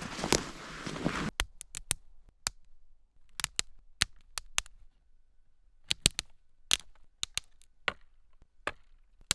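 A large dead tree branch being broken by hand close to the microphone: a second of rustling, then a long irregular run of sharp cracks and snaps as the wood splinters.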